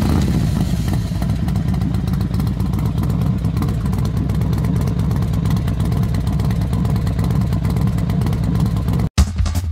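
A steady low engine-like rumble that stops abruptly about nine seconds in.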